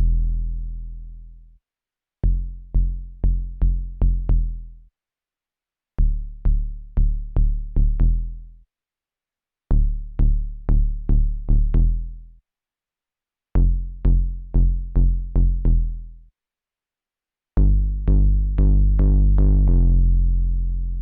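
KORG Volca Kick analog synthesizer playing short runs of deep, punchy kick-bass notes, each with a click at the attack and a low tone that decays. The runs come in phrases of about five hits, a little over two a second, with short breaks between them; the last phrase rings out longer.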